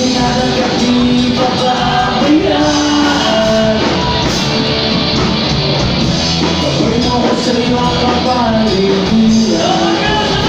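Live rock band playing loud: a male lead vocalist sings a melody over electric guitars and bass, heard through the venue's PA from the audience.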